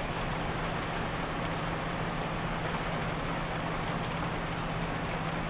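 Steady rain falling, an even hiss with no breaks, over a constant low hum.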